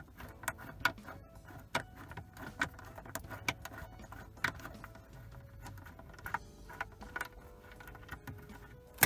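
Light, irregular metallic clicks and ticks of a Torx T20 bit being turned by hand to back out a screw from the plastic dash trim, with a sharper click near the end.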